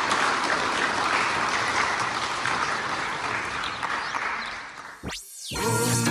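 Audience applauding, the clapping fading away about five seconds in. A short sweeping sound rises and falls, and music begins just before the end.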